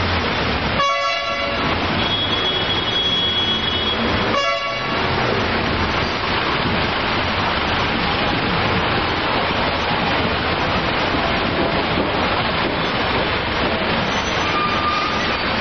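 Steady road traffic noise of trucks and cars at a toll plaza, with two short vehicle horn blasts, one about a second in and another about four and a half seconds in.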